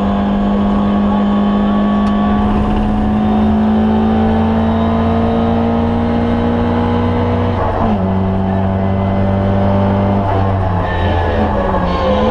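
Ford Escort Mk2 1300's 1.3-litre four-cylinder engine under load, heard from inside the cabin, its pitch climbing slowly as the car accelerates. About eight seconds in the pitch drops abruptly, then holds steady before dipping and wavering near the end.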